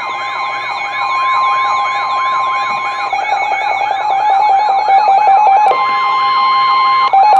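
Weather radio alert alarms going off together: a fast repeating siren-like warble, about three sweeps a second, over a steady alert tone. A rapid pulsing beep joins about three seconds in, and further steady tones join near the end. The alarm is sounding for an incoming severe thunderstorm warning.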